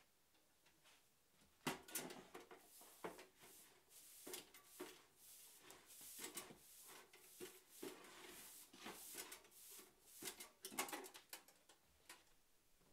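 Straw broom sweeping sawdust and small wood offcut strips across a wooden floor into a metal dustpan: a run of brisk bristle swishes and scrapes, starting about two seconds in and dying away near the end.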